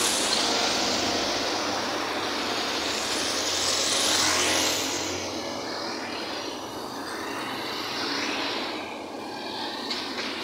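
Road traffic noise heard from a moving vehicle: a steady rushing hiss of passing cars and motorcycles, swelling about four seconds in.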